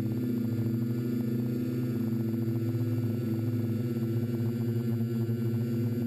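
TBS Discovery quadcopter's four motors and propellers running with a steady, multi-toned buzzing drone, picked up close from on board the aircraft in flight.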